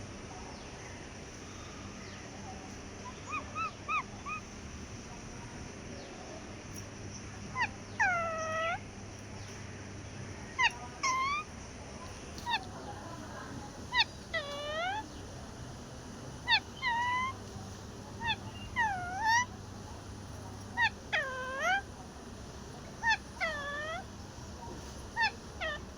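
A parrot giving a series of short whistled calls, each dipping down and sliding back up in pitch, often in pairs; a few faint ones come first, then louder calls repeat every second or two.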